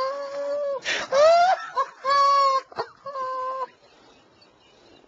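A man laughing helplessly in high-pitched, drawn-out cries, each held almost on one note, four in a row with the second rising in pitch. The laughter dies down about three-quarters of the way through, leaving only faint room noise.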